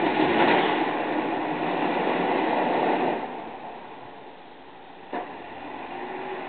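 Volvo BM L70 wheel loader pushing snow with its front plow blade: the loader working loudly with a rushing, scraping noise for about three seconds, then easing to a quieter steady running. A single short sharp knock about five seconds in.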